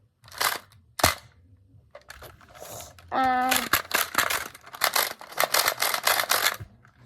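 Toy minigun blaster being cranked and fired: a couple of single clicks, then a quick run of sharp clicks at about four to five a second for roughly three seconds, with a brief pitched tone just before the run.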